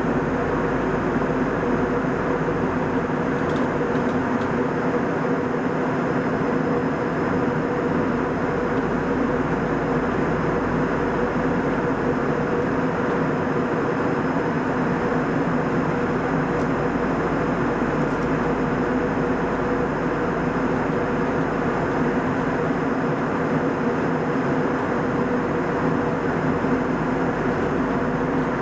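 Boeing 737-800 passenger cabin in cruise: an even rush of airflow and engine noise with a constant low hum, unchanging throughout.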